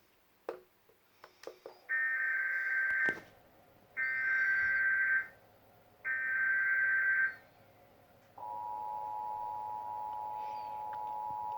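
Emergency Alert System tones. Three harsh, screeching one-second bursts of the digital SAME header come about a second apart, then the steady two-tone EAS attention signal starts about two-thirds of the way in and holds.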